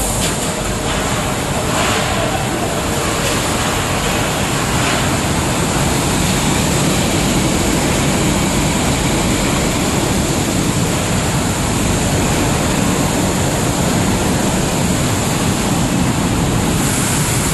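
Commercial tray-washing machine running, a steady loud rush of water spray and machine noise, with a few light clacks in the first seconds.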